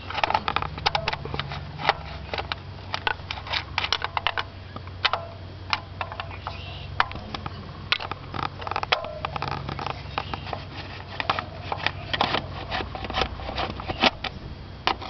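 Irregular clicks and light taps of a hand tool (screwdriver or socket ratchet) loosening the screws of a distributor cap, over a steady low hum.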